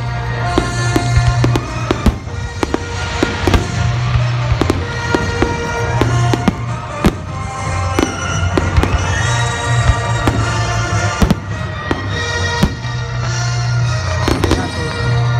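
Aerial firework shells bursting in quick, irregular succession, a string of sharp bangs, over music playing continuously underneath.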